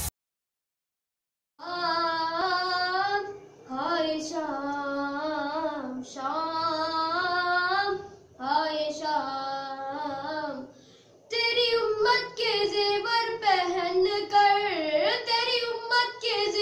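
A boy's voice chanting a noha, a Shia lament, unaccompanied, in long drawn-out melodic phrases with short breaks between them. It begins about a second and a half in and grows louder in the second half.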